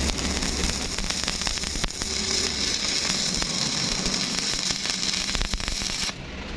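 Welding arc crackling and sizzling in a steady run of fine pops, stopping suddenly about six seconds in.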